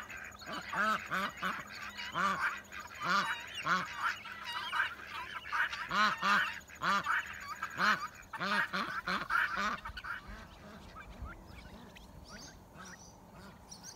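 Domestic ducks on a farm calling in a run of loud, honking quacks, often several a second. After about ten seconds the quacks taper off to faint, scattered calls.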